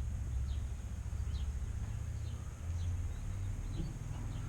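Songbirds chirping, a short high falling chirp every half second or so, over a steady low rumble.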